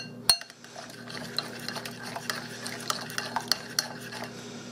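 A spoon clinks against the side of a bowl, then keeps stirring a vinaigrette dressing with a steady swishing scrape and small ticks of the utensil against the bowl.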